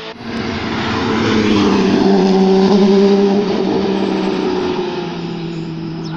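Rally car engine running at high revs as the car comes up the stage road, loudest about two to three seconds in and then easing to a steady, lower level.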